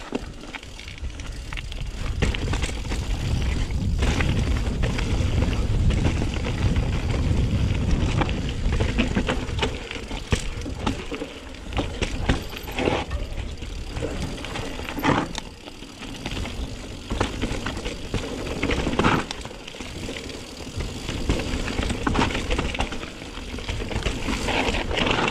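Mountain bike riding a rough trail: tyres rolling over gravel and rock with frequent rattles and knocks from the bike, over a low wind rumble on the chest-mounted microphone. The noise builds over the first couple of seconds.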